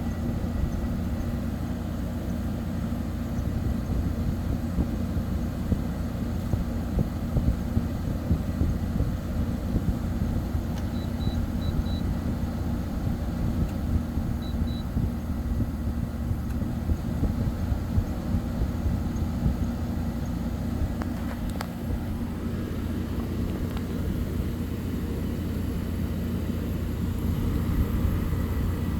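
Kenmore 8,000 BTU window air conditioner running with its compressor on, a steady hum under the rush of its fan, building head pressure.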